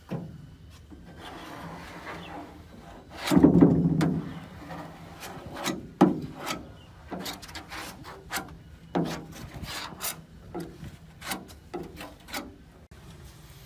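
Irregular rubbing and scraping strokes on a car body part being worked by hand, with a long, loud scrape about three seconds in and a sharp stroke near the sixth second.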